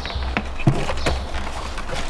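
An engine-bay shield being worked loose by hand, giving a run of irregular light clicks and knocks over a steady low hum.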